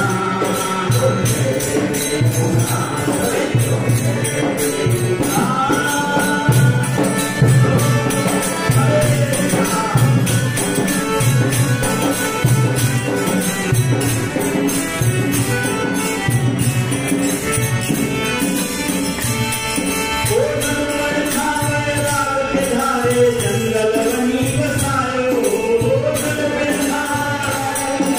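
A Sindhi devotional bhajan: a man singing the melody to harmonium, over a steady low drum beat of about one stroke a second with quick high percussion strokes.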